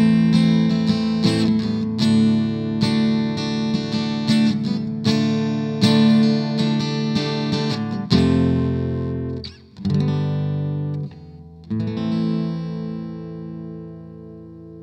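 Seagull Entourage Rustic cedar-top acoustic-electric guitar, strummed and picked in a song, heard through the speaker of a miked Roland AC60 acoustic amplifier. Steady rhythmic chord strokes give way to slower chords about 8 seconds in, and the last chord is left ringing and fading near the end.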